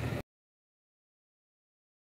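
Digital silence: the tail of a woman's speech is cut off abruptly about a quarter second in, and nothing at all follows.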